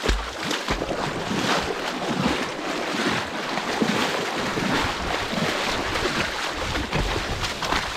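A person wading across a shallow river: steady splashing and rushing water as the legs push through the current.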